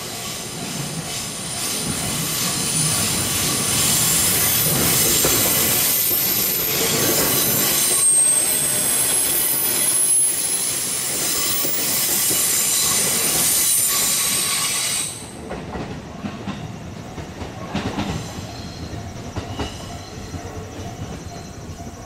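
Orange-striped JR Ome Line electric commuter train passing close by: wheels running over the rails with a high-pitched wheel squeal, building over the first few seconds and staying loud, then dropping off sharply about fifteen seconds in as the last car clears, leaving quieter rail noise with a few clicks.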